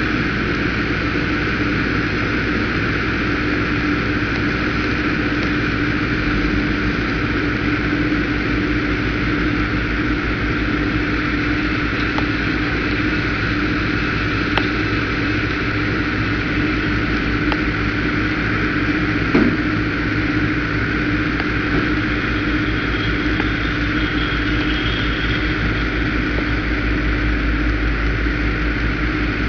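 Diesel engines of a dump truck and asphalt paving equipment running steadily with a constant hum and a low rumble. A few light knocks come through, the clearest about 19 seconds in.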